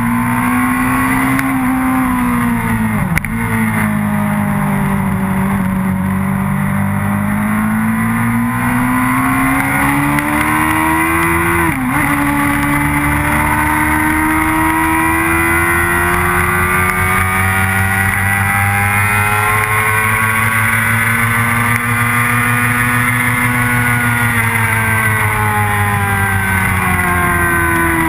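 Motorcycle engine heard from onboard the bike at track speed, its revs rising and falling slowly through the corners. There are two sudden drops in revs, about three and twelve seconds in.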